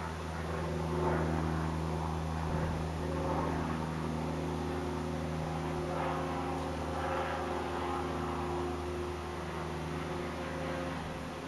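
Clothes dryer exhaust blowing out through a roof vent on the dryer's first run after the duct was cleaned: a steady low hum with a rush of air that swells and fades every few seconds.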